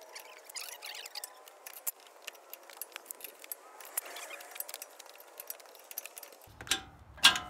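Irregular metal clicks and clinks of a wrench cranking a ball joint press tight against a seized ball joint. A single loud metallic clank near the end.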